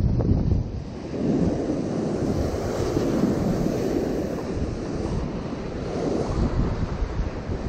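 Ocean surf breaking and washing up close by, rushing water that swells and eases with each wave, with wind buffeting the microphone.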